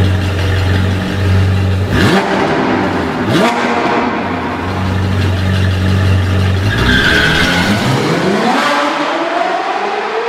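A motor running with a steady low drone, with two short revs rising in pitch a couple of seconds in and a long rising whine building through the second half.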